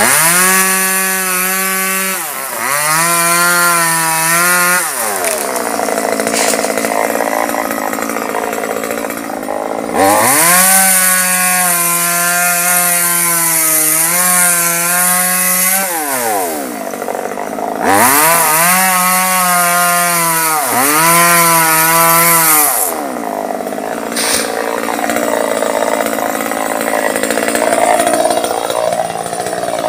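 Small two-stroke gasoline chainsaw cutting through mango tree limbs. It revs up to full throttle three times, near the start, about 10 s in and about 18 s in, for a few seconds each. The pitch sags briefly as the chain bites, and the engine drops back to a low idle between cuts.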